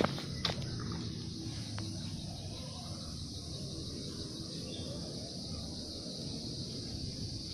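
Steady high-pitched chorus of insects with a low rumble underneath, and a few sharp clicks like footsteps in the first two seconds.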